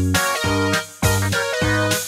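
Background music with a steady beat, a new note or chord about every half second over a strong bass.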